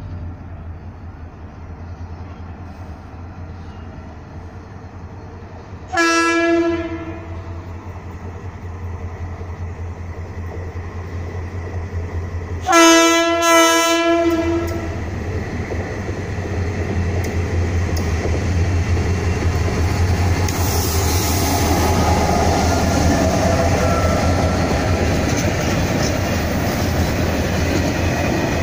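TCDD DE33000 diesel-electric locomotive approaching slowly with its engine running, sounding its horn once about six seconds in and again about thirteen seconds in with two blasts close together. The rumble and clatter of the train then grows as the locomotive and its freight wagons pass, with a brief hiss partway through.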